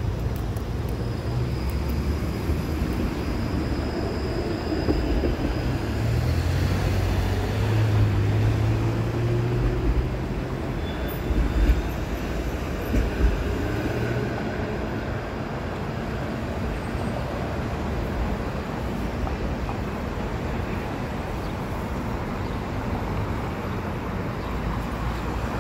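TTC Flexity Outlook streetcar passing along a city street amid traffic: a steady rumble with a low hum that swells in the first half, and a couple of short knocks near the middle.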